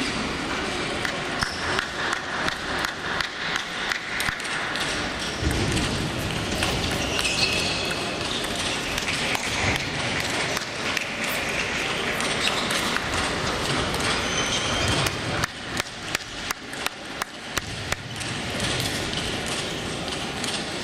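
Table tennis rally: a ping-pong ball clicking sharply off bats and table, with a quick, even run of loud clicks about three-quarters of the way in. Underneath is the constant ticking of balls from other tables in a busy sports hall.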